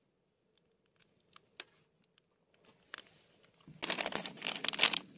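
A few faint clicks, then, nearly four seconds in, loud crisp crinkling of a plastic food package being handled.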